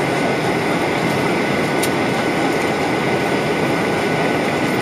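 Steady cabin noise of a Ryanair Boeing 737-800 in cruise: an even roar of engines and airflow with a steady high whine over it.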